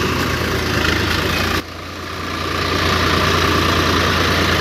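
Tractor diesel engine running steadily with a low, even hum. About a second and a half in, the sound drops suddenly, then builds back up over the next second or so.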